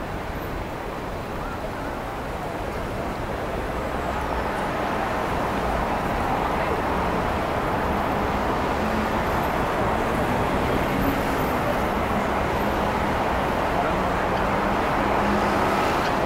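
Road traffic noise at a busy city crossing: cars moving through in a continuous wash of engine and tyre noise that grows gradually louder over the first several seconds, then holds steady with a faint low hum.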